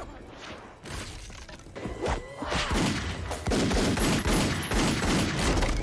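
Film soundtrack gunfire: a volley of handgun shots in quick succession, starting about two and a half seconds in and growing louder and denser.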